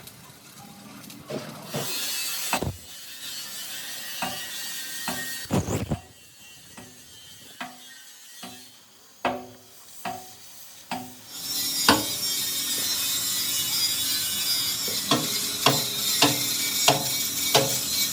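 Steel fabrication work: sharp knocks on steel with a short ringing tone, scattered at first and about one to two a second near the end, over a steady hiss that comes in loudly about eleven seconds in.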